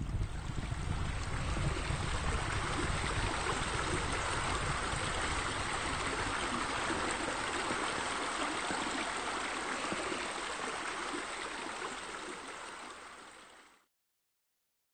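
Steady rush of running water that fades out and stops about fourteen seconds in.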